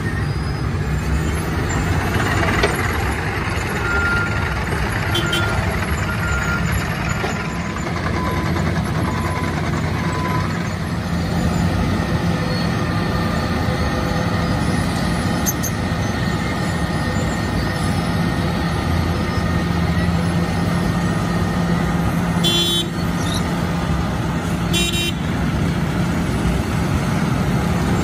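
Heavy diesel road-works machinery running steadily: a compact loader working at a dump truck, then a Wirtgen W 120 CF cold milling machine grinding up asphalt and conveying the millings into the truck. A few short high beeps come about four seconds in, and two brief rattles near the end.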